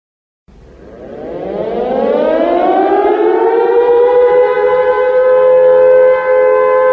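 Air-raid siren winding up: after a moment of silence its pitch rises over two or three seconds, then holds as a loud steady wail.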